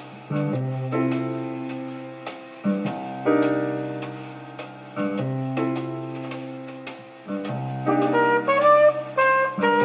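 Jazz music played back through hi-fi loudspeakers in a room: sustained chords struck about every two seconds over a low bass note, each dying away, with a faster melody of shorter notes coming in near the end.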